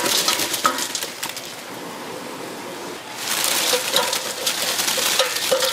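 Chicken frying in hot oil, a dense crackle that eases off for a second or two in the middle and swells again about three seconds in.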